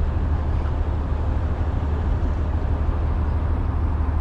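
Steady low rumble of an idling engine.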